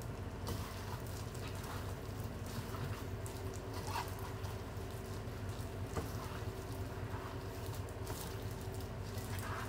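A plastic-gloved hand mixing marinated chicken pieces with mushrooms and black fungus on a plate: soft, wet squelching and rustling with a few brief sharper squishes, over a steady low hum.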